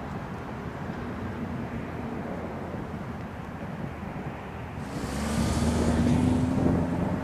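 Jet engine rumble of an Airbus A380-861 on final approach, from its four Engine Alliance GP7200 turbofans. It holds steady, then grows louder about five seconds in, with a hiss and a steady hum over the rumble.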